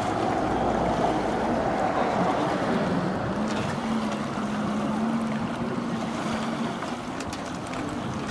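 Boat engine running steadily at idle, with wind and lapping water on the shore.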